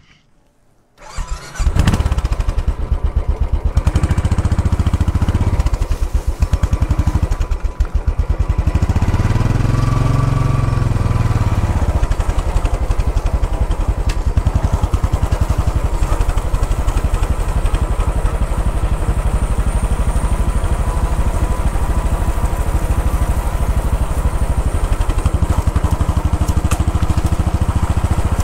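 Royal Enfield Bullet 500's single-cylinder four-stroke engine running steadily under way, its exhaust beat an even low pulse. The engine sound cuts in about a second and a half in, and the revs rise and fall briefly about ten seconds in.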